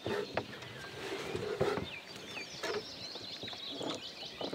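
Small birds singing in many short, high chirps, thickest in the second half, with a few short splashes of oars dipping into the water.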